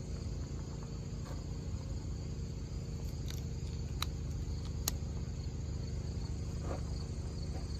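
Steady low hum with an even, high cricket-like drone, and a couple of small clicks about four and five seconds in.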